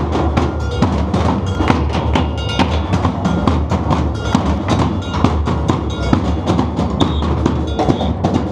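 Batucada samba percussion band drumming a fast, dense rhythm, with deep bass drums underneath and sharp high strokes on top; a high steady tone joins near the end.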